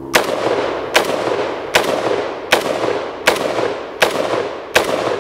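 CETME roller-delayed rifle fired as single shots at a steady pace, seven shots a bit more than one a second apart, each followed by a long echo.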